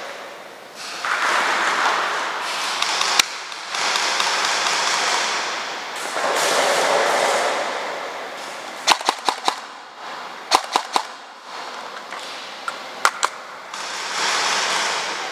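Sharp shots from an AR-15-style rifle fed from a Beta drum magazine, fired as a single shot and then in short quick strings of three to five. Swells of rushing noise come between the strings.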